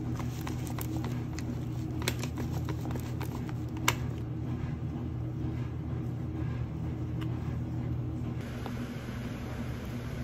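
Steady low mechanical hum, like a running fan, with a few light clicks and taps, the sharpest about four seconds in.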